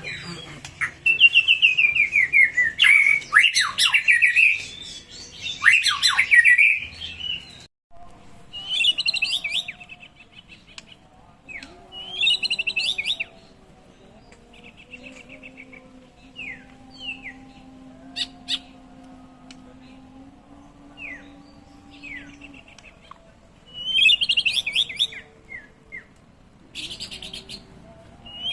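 White-rumped shama (murai batu) singing: loud bouts of fast, rapidly repeated chirping notes and trills through the first seven seconds, then shorter bursts and scattered single whistled notes.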